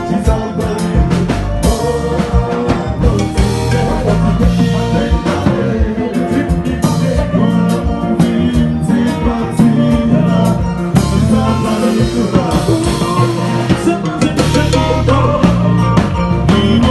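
Haitian kompa band playing live, with a prominent electric bass line under a steady drum-kit groove.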